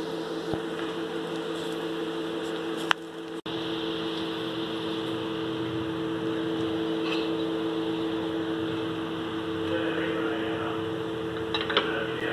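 Steady mechanical hum with a fixed pitch and a hiss under it, like a running fan or appliance; a single sharp click about three seconds in.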